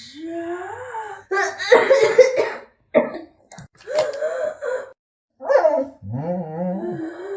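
A person with a cold coughing in several fits, with voiced, groaning throat sounds between the coughs.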